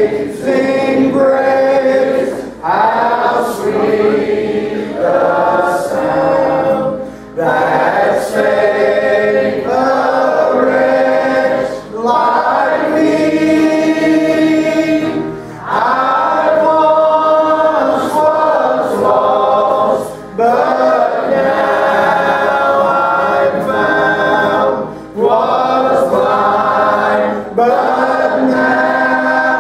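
Congregation singing a gospel hymn with acoustic guitar accompaniment, in sung phrases a few seconds long with short breaths between them.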